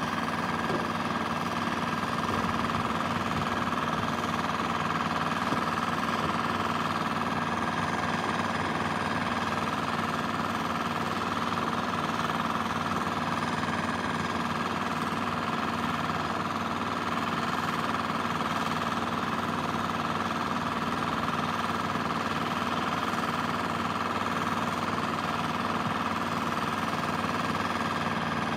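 An engine running steadily, with a fast, even knocking rattle and a steady hum that do not change in level.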